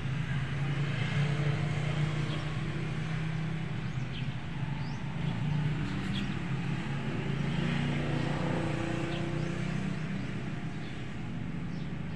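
A steady low mechanical hum, with a few faint short high chirps.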